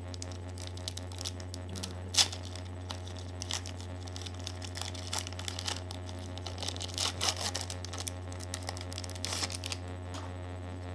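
A trading-card pack wrapper being torn open and crinkled, with irregular crackles and one sharper rip about two seconds in.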